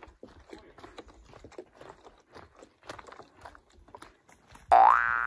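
Footsteps crunching on a dirt forest trail, irregular light steps. Near the end a much louder cartoon 'boing' sound effect cuts in: a pitched tone that rises quickly and repeats.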